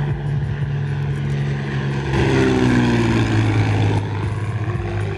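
Cessna 206H's six-cylinder piston engine and propeller in a low pass: a steady drone that grows louder about two seconds in, then drops in pitch as the plane goes by.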